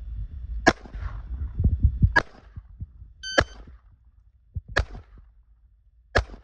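Five pistol shots fired slowly, about a second and a half apart. An electronic shot timer beeps once, around the third shot.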